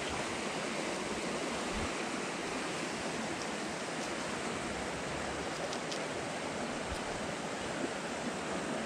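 Steady rushing of flowing creek water, an even wash of sound.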